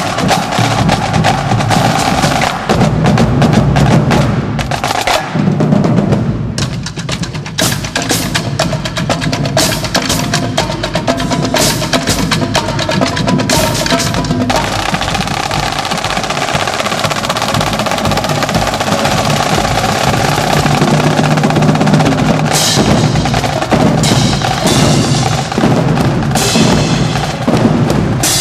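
Marching drumline playing a fast cadence on snare drums, tenor drums and bass drums, with rapid rolls and rhythmic strokes. The playing thins to a quieter, sparser passage a few seconds in, and cymbals crash over the drums in the last few seconds.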